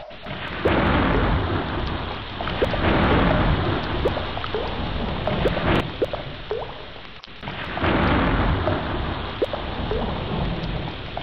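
Heavy rain falling steadily with rolling thunder, the low rumble swelling up and fading away several times.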